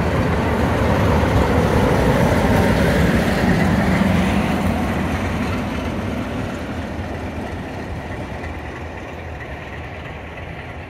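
Passenger train rumbling past close by, the diesel locomotive on its rear going by early on, then the rumble fading steadily over the last few seconds as the train pulls away.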